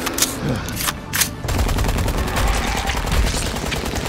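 Automatic gunfire sound effects: rapid shots from submachine guns, first as separate sharp cracks and then, after about a second and a half, a denser continuous burst with a heavy low rumble.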